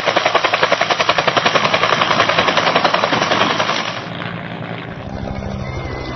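Military helicopter passing close, its rotor beating in fast, even pulses. About four seconds in the beating eases into a steadier, quieter engine and rotor hum.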